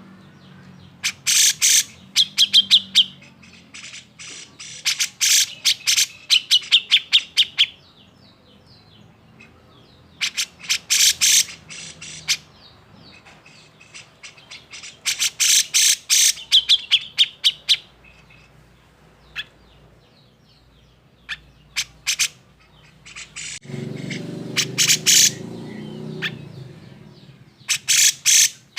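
Grey-cheeked bulbul (cucak jenggot) giving agitated, harsh chattering calls: bursts of rapid sharp notes, each a second or two long, repeated every few seconds, several ending in a short higher trill. A low rumble comes up briefly near the end.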